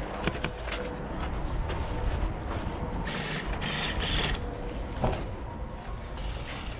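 A burst of rapid airsoft gunfire about three seconds in, lasting a second or so, over steady wind and handling rumble on the microphone, with a few sharp clicks near the end.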